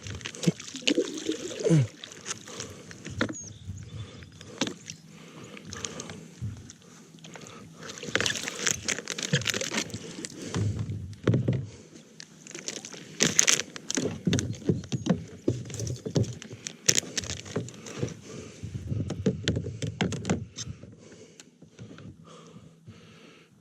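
Kayak paddling on a pond: water splashing and dripping from the paddle strokes, with scattered knocks and scrapes against plastic kayak hulls.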